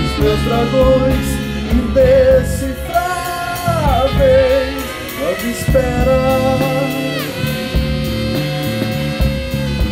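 Rock band playing a song: drum kit, bass and electric guitar under a sung melody of long held notes that slide down between them.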